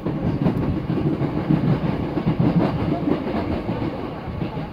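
Hankyu 6300 series train running, heard from inside the car: a steady rumble of wheels on rail with a few faint clicks.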